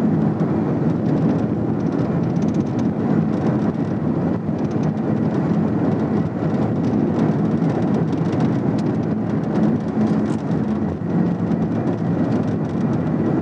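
Steady road, tyre and engine noise heard from inside a state police patrol car driving at high highway speed.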